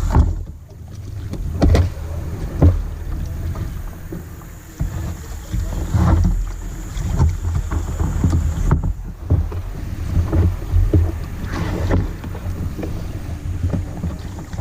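Kayak being paddled: irregular paddle splashes and knocks against the hull over a steady low rumble.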